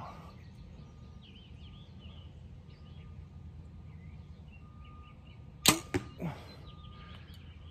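A compound bow shot: after a held full draw, the release comes as one sharp, loud snap of the string about three-quarters of the way in, with a quick second click right behind it and a fainter knock about half a second later.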